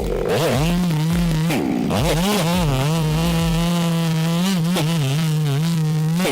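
Two-stroke chainsaw engine running at high revs, its pitch dropping briefly a few times as the throttle eases and then climbing back.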